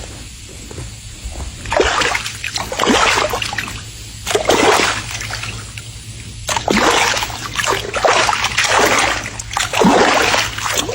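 Water splashing and sloshing as a swimming animal paddles, in repeated bursts starting about two seconds in, with a short lull midway.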